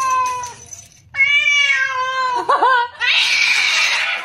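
Tabby cat yowling: two long, drawn-out angry yowls, the second wavering at its end, followed by about a second of harsh hissing. The yowls show a jealous, agitated cat protesting at another cat being held.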